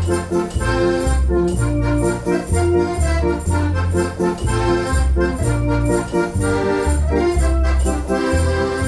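Organ music in the Belgian dance-organ (Decap) style: a bouncing, stepping bass line under sustained chords and an accordion-like melody, at a steady dance beat.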